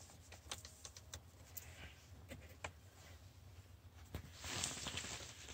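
Faint scattered clicks of the positive battery terminal clamp being worked onto the battery post. A brief scraping rustle comes about four seconds in.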